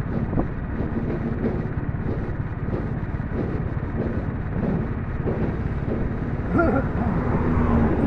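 Steady low rumbling noise, with faint voice-like sounds near the end.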